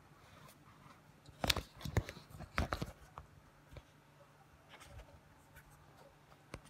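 A few light clicks and knocks of handling, clustered from about one and a half to three seconds in, with one more click near the end, over a faint steady low hum.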